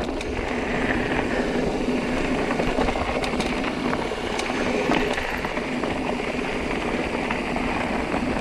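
Carbon mountain bike rolling fast downhill over a stony trail: a steady rumble of tyres on rocks and gravel, with scattered sharp knocks and rattles from the bike over the stones.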